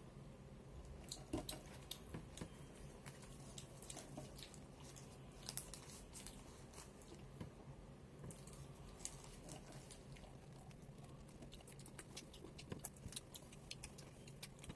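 Quiet chewing and biting of a fast-food burger, with scattered small clicks and the rustle of its paper wrapper over a faint steady hum.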